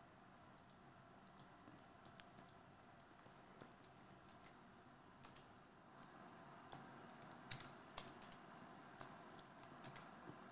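Near silence with faint, scattered clicks of computer keyboard keys being typed, sparse at first and more frequent in the second half.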